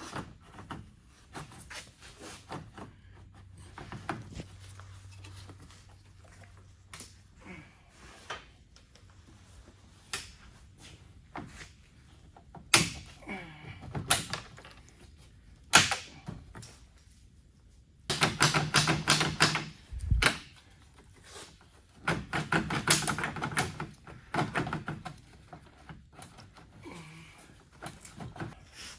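Tools working on the underside of a car: scattered clicks, knocks and clunks of metal and plastic parts, with two sharp knocks and two stretches of rapid, even clicking about two-thirds of the way in.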